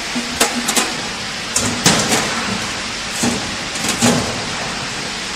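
Sheet-metal electric control box knocking and clicking against the steel elevator frame as it is hung on its mounting screws and its door is handled: several short knocks over a steady workshop hiss.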